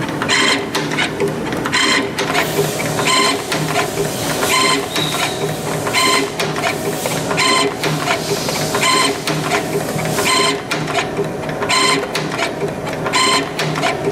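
CNC torsion spring machine running, forming left-hand torsion springs from 0.6 mm wire. A steady mechanical whirr is broken by a ringing, clattering stroke that repeats evenly about every one and a half seconds.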